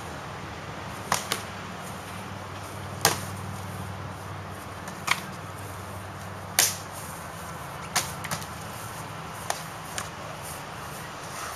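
Short practice swords striking shields and each other in sparring: about nine sharp knocks at irregular intervals, some in quick pairs, the loudest about two thirds of the way through.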